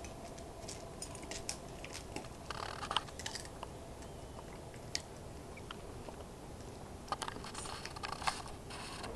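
A big dog and a puppy play-fighting on concrete: scattered clicks, scuffs and crunchy mouthing sounds come in short clusters, near the start, around three seconds in, and again near the end.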